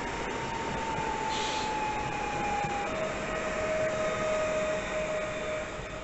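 Electric train running past, a steady rumble with a whine from its electric drive that slides down and steps to a lower pitch about three seconds in.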